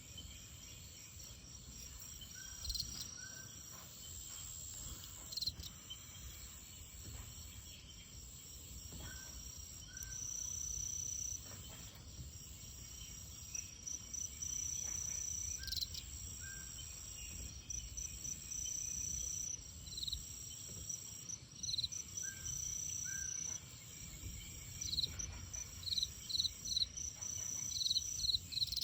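Night insects calling: a steady high trill in long held stretches, with short repeated chirps that come faster near the end, and faint paired lower notes now and then.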